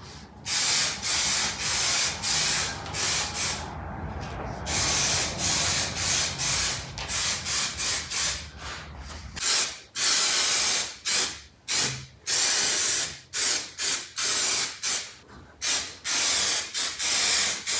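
Aerosol can of spray contact adhesive hissing in repeated bursts, some brief and some held for a second or more, as glue is sprayed onto the facing strips and the cabinet frame.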